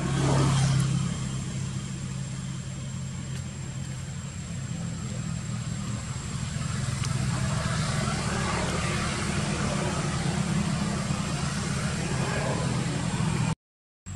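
A motor engine running steadily with a low hum, with a brief falling squeal near the start; the sound cuts out for a moment near the end.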